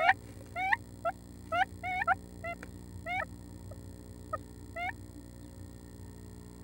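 Northern flicker giving a series of short, upward-sweeping call notes, about two a second, close to the microphone. The notes thin out and stop about five seconds in.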